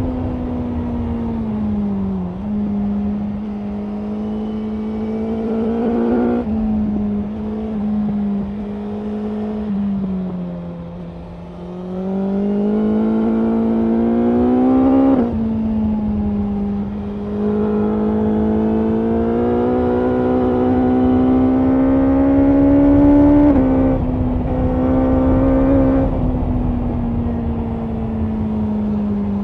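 2024 BMW S1000R's inline-four engine running hard at high road speed, with wind rushing past. Its pitch sags and climbs again as the throttle is eased and reopened, drops suddenly at gear changes about fifteen and twenty-three seconds in, and falls away near the end as the bike slows.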